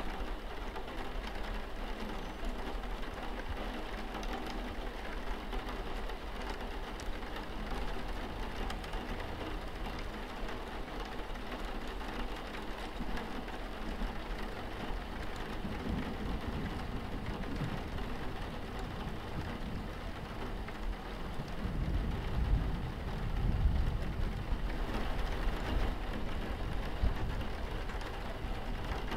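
Steady rain on a window pane, an even hiss of drops. A low rumble swells a little past the middle, and a stronger one comes near the end.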